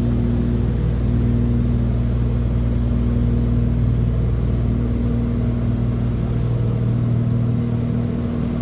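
Cabin noise of a Beechcraft Baron 58P in cruise: its twin piston engines and propellers running steadily, a loud, even hum heard from inside the cabin.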